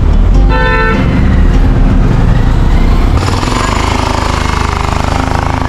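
Motorcycle engine running close by with a fast, even pulsing beat. A vehicle horn honks briefly about half a second in. A rushing wind and road hiss comes up about three seconds in as the bike moves along.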